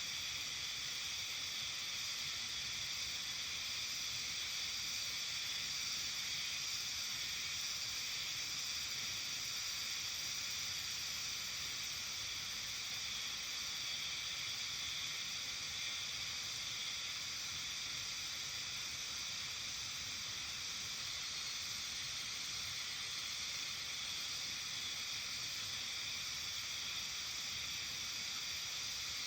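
Steady, hiss-like evening chorus of many calling insects, an even wash of high trilling with no single call standing out.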